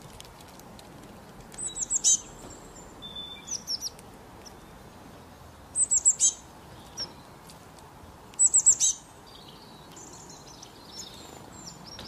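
A small songbird calling: three quick bursts of four or five very high, down-slurred chirps, about two, six and nine seconds in. Softer single notes come between them, and faint twittering near the end.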